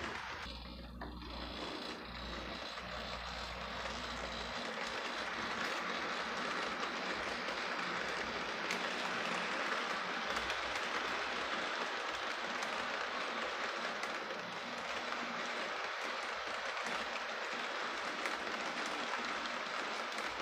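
HO scale model train cars rolling on metal track: a steady rolling noise of wheels on rails with faint ticks over rail joints. It grows louder a few seconds in and then holds steady.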